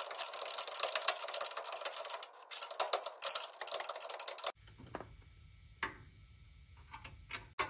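Hand ratchet clicking rapidly in short back-and-forth strokes, running in torque converter bolts. About four and a half seconds in it stops, leaving a low hum and a few scattered metal clicks.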